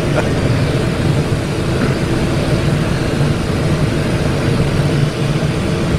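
Steady in-flight cockpit noise of a Cessna Citation XLS business jet on final approach: rushing airflow with the even hum of its twin turbofan engines, unchanging throughout.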